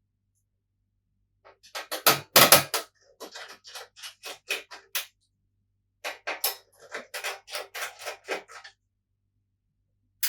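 Quick runs of small clicks and light metallic taps as Phillips screws are backed out and handled while a PS4 Pro is taken apart, with one heavier knock about two seconds in. There are two bursts of this clicking, separated by a short silence.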